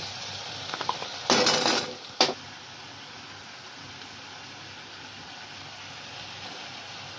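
Vegetable stir-fry sizzling steadily in a pan, with a few light clicks and a short loud clatter of a metal spoon against the pan about a second and a half in, then one more sharp knock.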